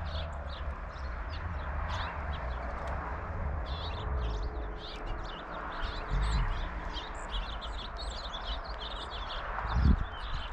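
Small songbirds chirping rapidly and continuously over a low steady rumble. Just before the end there is a single loud thump.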